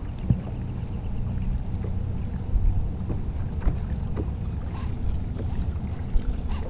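Steady low rumble of wind and water around a fishing boat, with a few light clicks and knocks from handling a baitcasting rod and reel during the retrieve.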